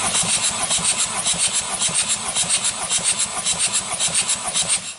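Ford Duratorq diesel engine turned over by its starter for a compression test: an even, rapid, rhythmic pulsing with a strong hiss, stopping near the end as cranking ends.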